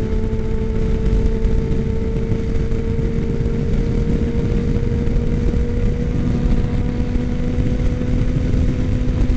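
Suzuki Katana 600's inline-four engine running at steady freeway cruise: a steady hum that creeps slightly up in pitch, under heavy wind rush on the helmet-mounted microphone.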